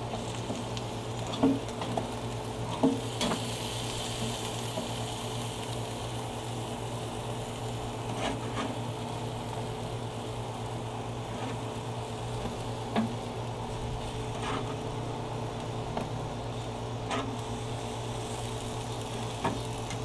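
Food sizzling on a grill, a steady hiss over a constant low hum, with a few short sharp clicks, the loudest two near the start.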